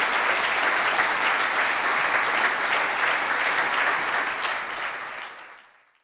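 Audience applause: a hall full of people clapping steadily at the close of a talk, fading out over the last second or so.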